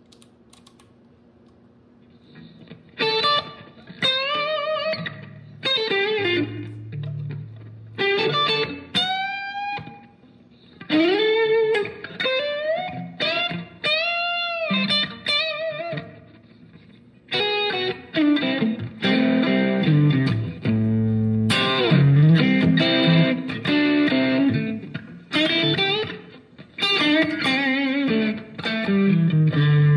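Electric guitar played through a Sonicake Matribox II Pro multi-effects processor preset. After a short pause it starts about three seconds in with single-note lead phrases that include string bends, then moves to denser, louder chord riffing from about halfway through.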